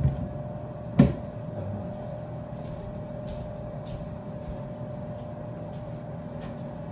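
Marginated tortoise biting at flower stems: a sharp snap about a second in, then faint scattered crunching clicks, over a steady hum.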